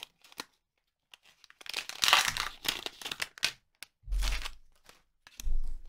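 Foil booster-pack wrapper crinkling and tearing as the pack is pulled open and the cards slid out, in several short rustling bursts after a moment of near quiet. Two dull bumps of handling follow near the end.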